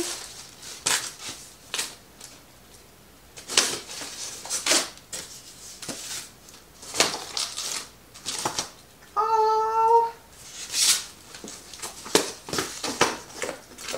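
Plastic packaging and cardboard rustling and crinkling in short bursts as items from a parcel are unwrapped and handled. About nine seconds in there is one brief, steady pitched sound lasting under a second.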